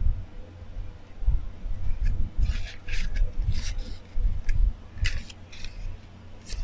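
Stiff paper envelope being unfolded and handled by hand, rustling and scraping in short bursts, over dull low bumps.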